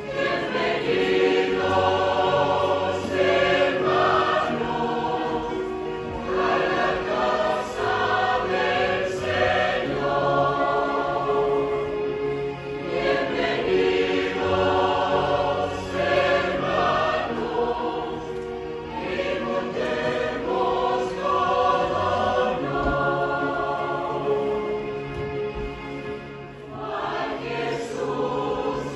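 Mixed church choir of men's and women's voices singing a sacred song together in sustained chords, phrase after phrase.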